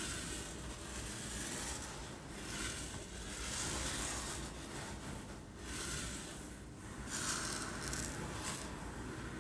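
Uncooked rice being shaken and rolled so that the grains slide together, making a hissing rush that swells and fades in waves like surf breaking, with several short breaks between the swells.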